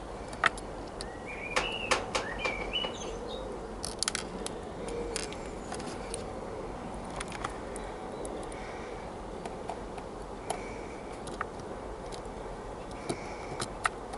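Small screw being fitted into a model locomotive's plastic tender chassis with tweezers and a jeweller's screwdriver: scattered light metallic clicks and taps, bunched about 1.5 to 3 seconds in and again near 4 to 5 seconds.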